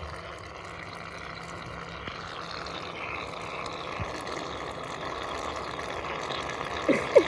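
Shaving foam coming out of an aerosol can very slowly in a steady hiss, a sound called disgusting and wrong. Two short, sharp squeaks near the end are louder than the hiss.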